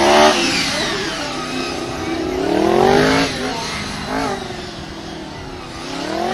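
Sport motorcycle engine revving up hard and dropping back again several times as the bike accelerates out of and slows into tight cone turns, with a lower, steadier stretch a little before the end.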